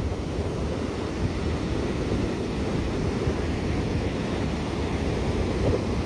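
Stormy sea surf breaking and washing up a sandy beach in a steady, unbroken rush, with strong wind buffeting the microphone and adding a low rumble.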